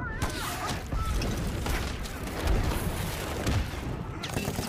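Battle sound effects: dense rifle and machine-gun fire with heavy explosions, the biggest about halfway through and another a second later. A man's shouted cry at the very start.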